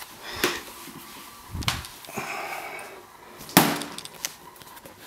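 A few separate knocks and thumps, the loudest a sharp knock about three and a half seconds in, with a soft rustle between them.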